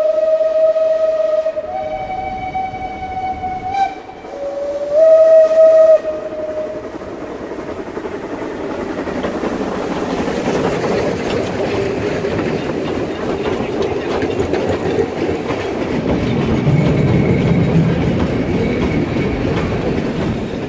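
Narrow-gauge steam locomotives (a Saxon IV K piloting a U-class engine) sound their steam whistles in three long blasts over the first six seconds or so, the middle blast higher in pitch. Then the double-headed train passes close by, its steam exhaust and wheels on the rails making a steady, loud running noise.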